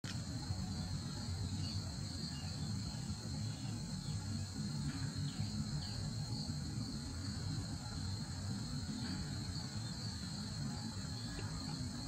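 Steady insect chorus, a continuous high even trill, over a low rumble.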